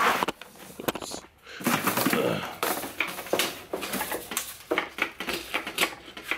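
A string of knocks, clicks and rattles as a metal wheelchair is picked up and handled.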